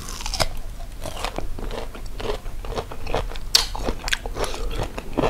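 Crisp unripe green mango bitten and chewed close to the microphone: a quick, irregular run of wet crunches.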